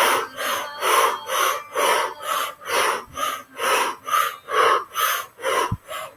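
Fast, rhythmic mouth breathing through lips rounded into an O, about two breaths a second in an even, loud, hissing pulse: the rapid yogic breath driven from the navel and diaphragm.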